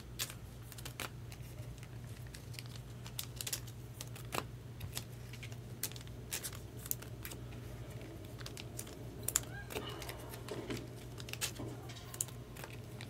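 Trading cards being slid into plastic sleeves and rigid toploaders: scattered light plastic clicks and crinkling over a steady low hum.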